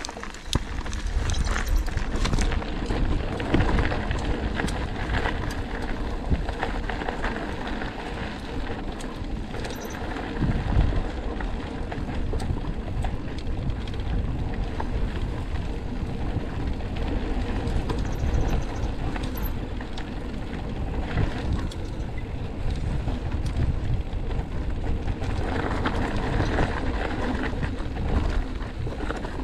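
Mountain bike riding over a rough trail: a steady rumble with many small rattles and knocks.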